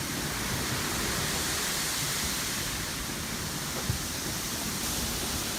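A steady, even rushing noise, with a faint single knock about four seconds in.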